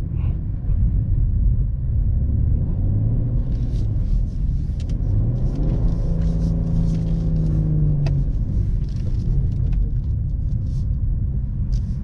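BMW M340i's turbocharged 3.0-litre inline-six running under a steady low rumble of the car driving through snow, heard inside the cabin. About five seconds in the engine note climbs and holds for a couple of seconds before dropping back, with scattered light clicks throughout.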